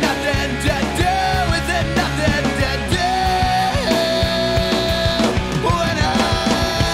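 Rock band music: electric guitars and drums playing steadily, with long held melody notes over them.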